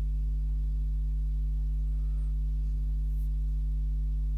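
Steady low electrical hum at a constant pitch, with a few fainter steady tones above it.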